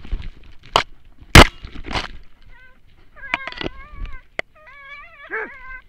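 Sharp knocks and scuffs on the dog-mounted camera, the loudest about a second and a half in, then a dog whining in a series of high, wavering cries from about halfway through.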